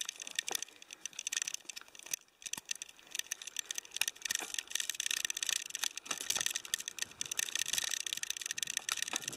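A bicycle ridden fast along a bumpy tarmac path: a dense, irregular clicking and rattling over a steady hiss.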